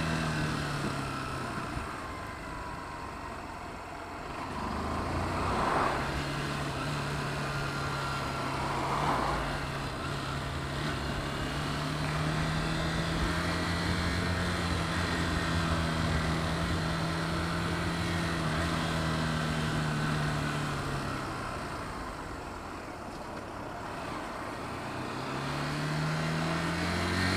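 Honda motorcycle engine and wind noise on a helmet-mounted camera while riding. The engine note eases off near the start, holds fairly steady through the middle, drops away about three-quarters through, then climbs again near the end as the bike accelerates.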